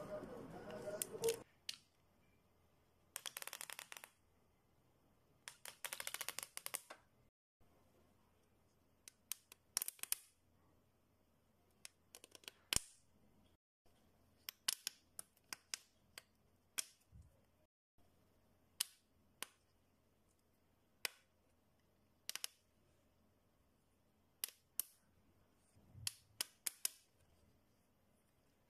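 Squid pop suction-cup fidget toy. The rubbery strip's little suction cups snap off a flat surface: two bursts of rapid crackling pops, then many single sharp pops spread out, and a couple of soft thumps as the strip is slapped down.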